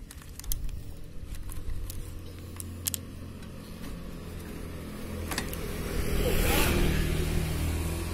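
Sharp metal clinks of a scraper and tin pans being handled on a street-food griddle, a few in the first three seconds, over a steady low rumble that swells into a louder rushing noise about six seconds in.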